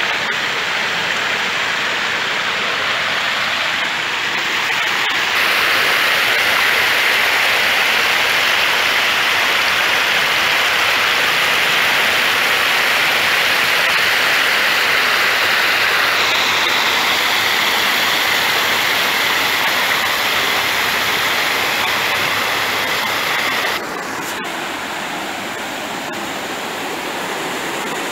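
Running water rushing steadily: a loud, even hiss that steps up about five seconds in and drops a few seconds before the end.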